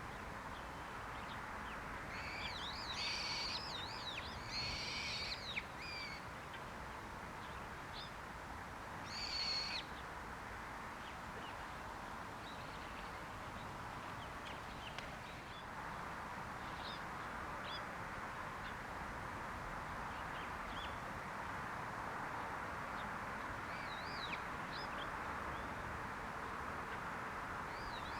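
Wild birds calling over a steady outdoor hiss: two wavering, layered calls back to back about two to six seconds in, another about nine seconds in, then scattered short, faint chirps.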